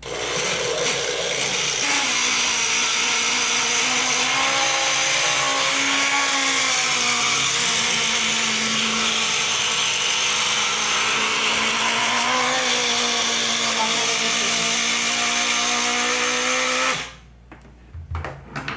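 Taiff hair dryer running: a loud rush of air over a motor whine whose pitch wavers up and down, making a strange noise because the small motor's bearing (mancal) is worn and the shaft pin sits loose. It is switched off about 17 seconds in.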